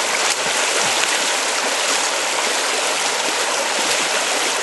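River water rushing steadily close by, an even, unbroken flow.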